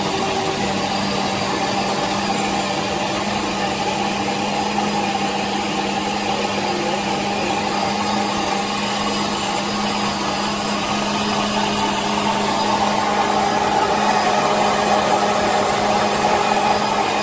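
Electric countertop blender running steadily, puréeing chopped peppers, onions, ginger and garlic with water; it gets a little louder in the last few seconds.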